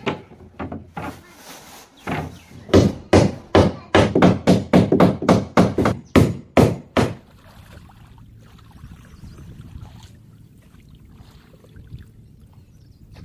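Hammering: a quick run of about fifteen hard blows, roughly three a second, after a few scattered knocks, then a low steady rumble of background noise.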